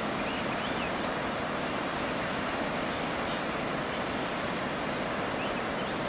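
Steady rushing of a waterfall, with a few faint bird chirps and whistles about a second into the sound and again near the end.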